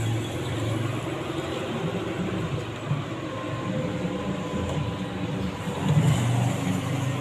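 Motor traffic on the street passing by, a steady low engine hum that swells briefly about six seconds in.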